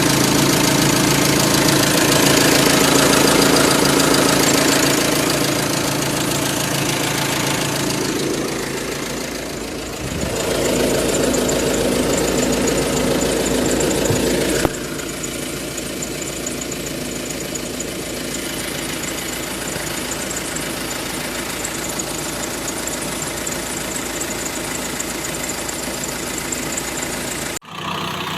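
Vehicle engine running steadily at idle, its sound changing abruptly about halfway through and again briefly near the end.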